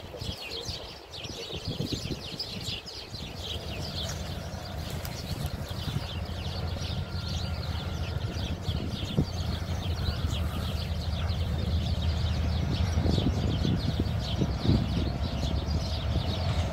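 Diesel locomotive engine running as it rolls slowly toward the listener, its low drone growing steadily louder, with a few knocks near the end. Birds chirp busily over it for the first two-thirds.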